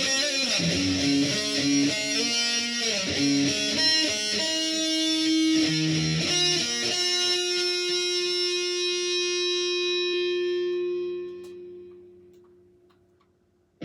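High-gain electric guitar, a Dean MLX through a Boss Katana Mk2 amp with a scooped V-shaped EQ, playing a melodic line. It then holds one long note that fades out.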